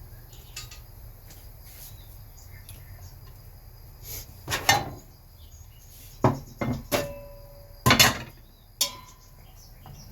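Kitchen cookware clattering: a handful of sharp knocks and clinks, one leaving a brief metallic ring, over a low steady hum.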